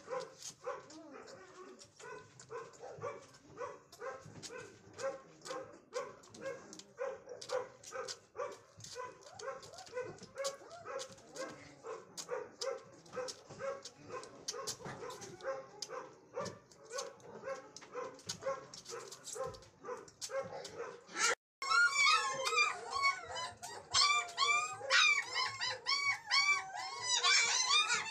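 A young puppy suckling from a feeding bottle, giving small rhythmic whimpering grunts a few times a second. About 21 seconds in, a puppy begins loud, high-pitched whining cries that rise and fall in pitch.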